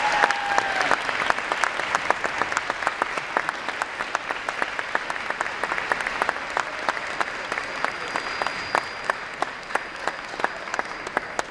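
Crowd of spectators applauding, many hands clapping at once; the applause gradually fades and dies out near the end.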